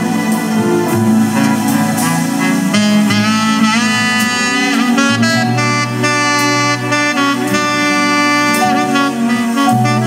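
Music: an instrumental break in a slow jazz vocal ballad, with a lead melody line bending in pitch over a steady bass.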